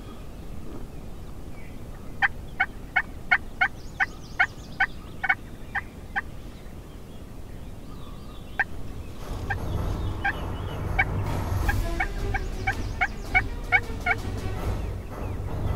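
Wild turkey calling: two long series of short, evenly spaced yelps, about two or three a second, each run lasting several seconds. A low rumble comes in under the second series.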